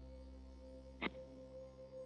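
Soft ambient background music: a faint sustained drone with steady held tones, and one brief click about a second in.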